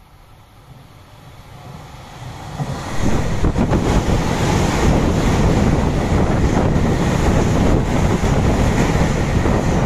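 Nankai 9000 series electric train running through a station at speed. The noise swells as it approaches, then from about three seconds in there is a loud, steady rush of wheels on rail and moving air as the cars go by, with wind noise on the microphone.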